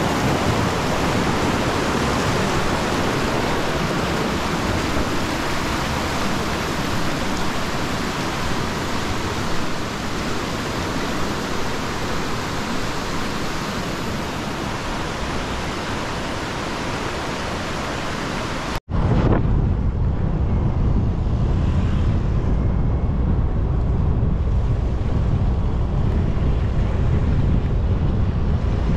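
A steady rushing hiss. After an abrupt cut about two-thirds of the way in, it gives way to low, rumbling wind buffeting on the microphone.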